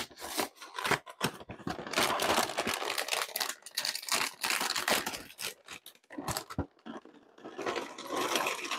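A cardboard cereal box being torn open at the top and its plastic inner bag crinkled and pulled open, with a long stretch of rustling and tearing. Near the end, small cereal pieces are poured from the bag into a glass bowl.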